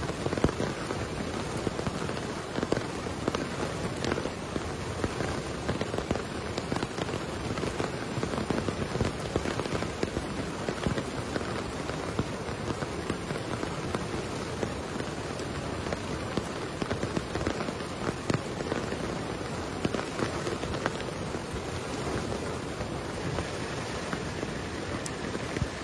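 Heavy rain pouring onto flooded ground: a dense, steady hiss thick with small drop impacts.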